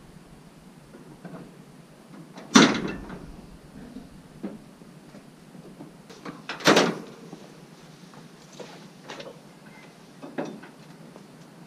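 Pickup truck door and hood being worked: two loud slams about four seconds apart, then a lighter clunk near the end, with a few small knocks between.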